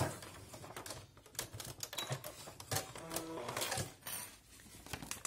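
A scattered series of sharp clicks and rustling as the cotton tote fabric and crinkly plastic sleeve are handled and drawn out from under the sewing machine's presser foot.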